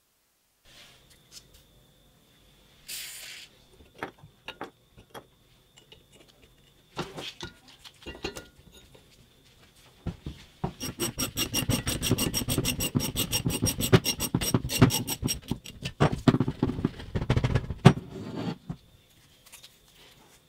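Ratchet wrench clicking rapidly and evenly as it turns the screw of a three-jaw puller to draw a rusted pulley off an electric motor's shaft, for about eight seconds in the second half. Before it come scattered metal knocks and a short hiss.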